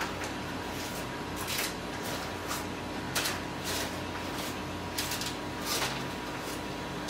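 Clear plastic bag of frozen mini tacos crinkling in a series of short, irregular rustles as it is handled and the tacos are taken out onto a baking sheet.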